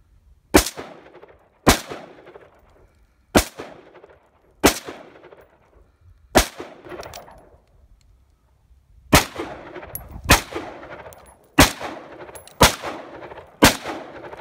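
AR-15 rifle fired semi-automatically: ten single shots about a second apart, with a pause of nearly three seconds after the fifth, each shot trailing off in a short echo.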